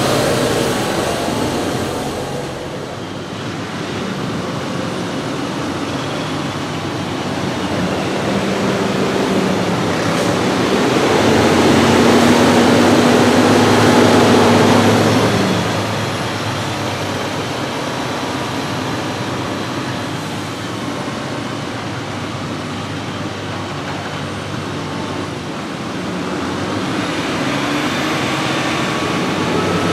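Heavy farm machinery running continuously during the corn silage harvest. It grows louder and passes close between about eleven and fifteen seconds in, with an engine note that rises and then falls.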